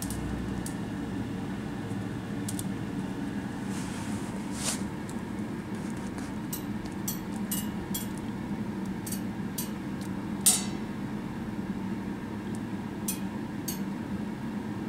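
Steady low room hum with scattered light clicks and clinks, a dozen or so spread irregularly, the sharpest about ten and a half seconds in.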